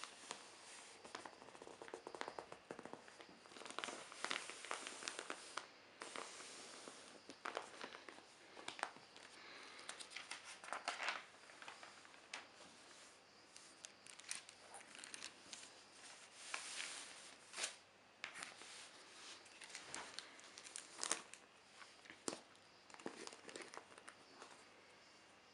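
Newsprint rustling and crinkling under bare hands: palms rubbing and sliding over the open pages, and pages being turned, in a long run of soft rustles broken by sharp crackles.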